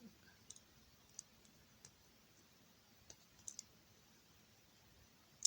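Faint, scattered clicks of Lego bricks being handled and pressed together, with one sharper click near the end.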